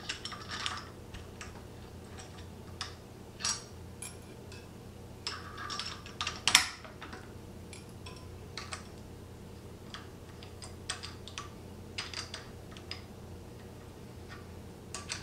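Irregular light metallic clicks and taps of Allen keys and bolts against the bench's metal frame as the bolts are fitted and turned by hand, with one sharper clack about halfway through.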